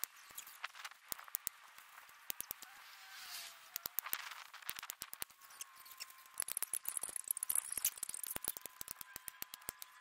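Light metallic clicks and rattles of galvanized hardware cloth being unrolled and pressed flat over a wooden frame, coming more thickly in the second half.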